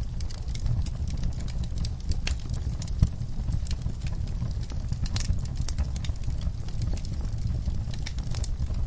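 Wood fire in an outdoor fire pit crackling, with frequent irregular sharp pops, the loudest about three seconds in, over a steady low rumble.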